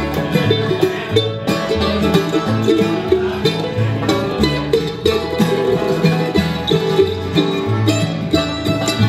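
Live bluegrass band playing: banjo picking over acoustic guitar and mandolin, with an upright bass plucking a steady line of alternating low notes about twice a second.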